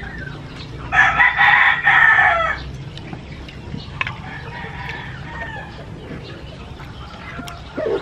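A rooster crows once, loudly, about a second in, a call of about a second and a half. Fainter calls follow a couple of seconds later.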